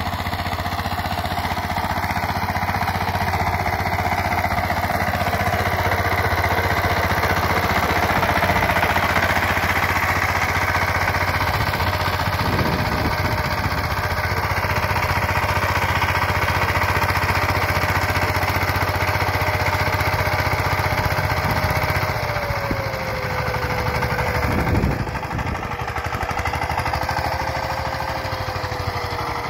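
Two-wheel walking tractor (power tiller) engine running steadily while it tills and furrows soil. The engine's pitch drops slightly about twenty-two seconds in.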